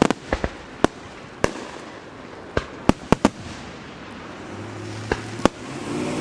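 Fireworks show: about a dozen sharp bangs from aerial firework shells in quick, irregular succession, several in close pairs. The uploader takes the shells for 5-inch mortars.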